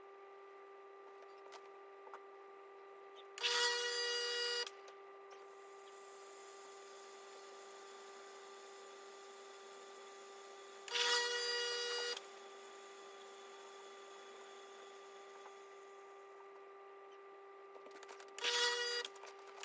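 Breville Dual Boiler BES920XL espresso machine in its clean cycle: the pump buzzes in short purge bursts of about a second, roughly seven seconds apart, over a steady faint hum.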